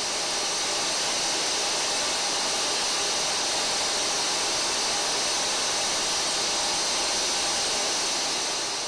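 Steady rushing turbine noise from a jet cargo aircraft on the apron, starting to fade out near the end.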